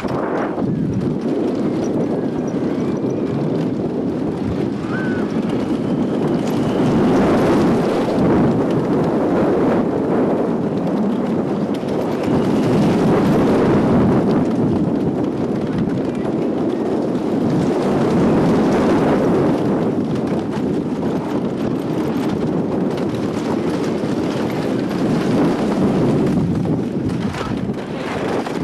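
Wooden roller coaster train running over the track, heard from aboard the train: a continuous rumbling clatter of wheels on the wooden track that swells and fades every few seconds through the curves and hills.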